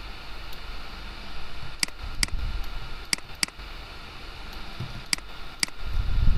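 Computer mouse button clicking about six times, in rough pairs, while working the Clone Stamp tool in Photoshop, over a steady hiss of room and computer-fan noise.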